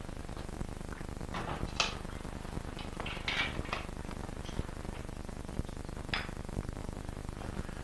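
A few light clinks of china teacups and a teapot being handled, over a steady low hum.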